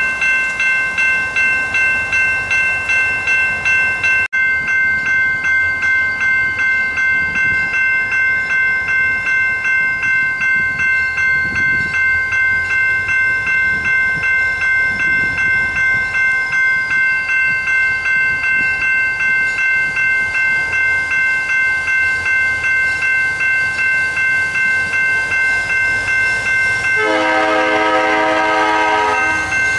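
Railroad grade-crossing bell ringing steadily, about two strikes a second. Near the end a locomotive horn sounds for about two and a half seconds over the bell.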